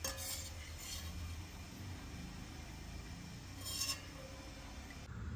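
Soft clinks of a kitchen utensil against cookware: a brief one at the start, another about a second in, and a slightly longer one near four seconds in, over a low steady hum.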